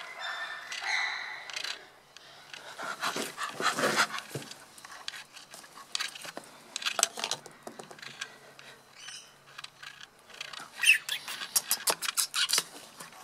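A person imitating a bonobo's laugh: short pitched hoots and breathy panting in bursts, with a fast run of short, sharp pants near the end.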